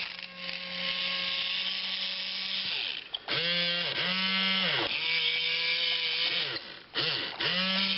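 Small DC gear motors of a remote-controlled robot arm whining with a gritty gear hiss. They run in four short spells, each rising in pitch as a motor spins up and falling as it stops, as the arm's joints are driven one at a time.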